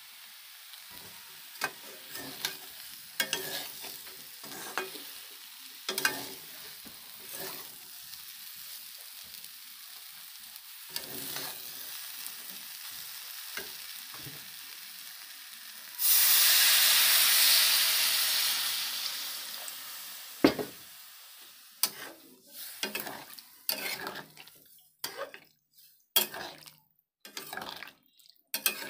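Potatoes and soya chunks frying in masala in a metal pan, a metal spatula scraping and stirring with a steady sizzle. About halfway through, water goes into the hot pan and a loud hissing sizzle rises and fades over a few seconds; after that the spatula strokes go on through the wet gravy.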